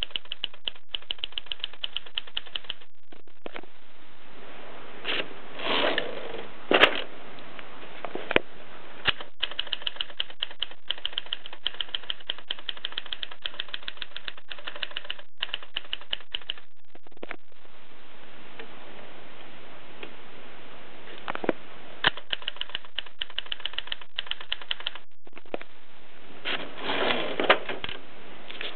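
A 1950s Express Special bakelite typewriter being typed on: quick runs of key strikes, several a second, broken by short pauses. There are heavier clatters about six seconds in and again near the end, and a lull in the middle.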